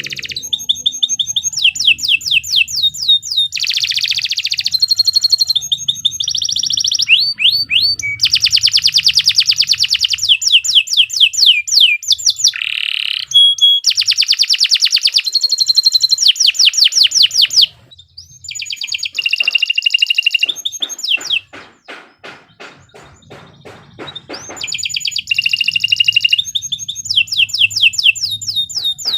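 Domestic canary singing a long, shrill, continuous song of fast repeated trills and rolling phrases. Past the middle it briefly drops to a quieter run of dry clicking notes before the fast trills return.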